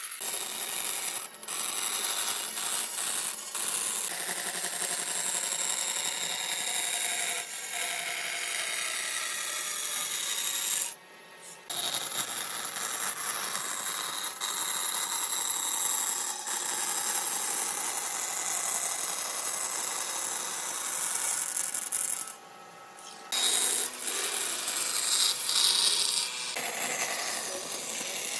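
Band saw cutting a curve through a wooden board: a steady hiss of the blade in the wood, dropping away briefly twice.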